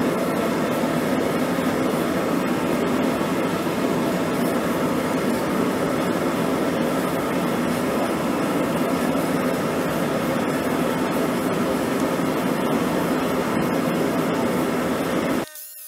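Forge running in the background, a steady rushing noise without any hammer strikes, that cuts off suddenly near the end.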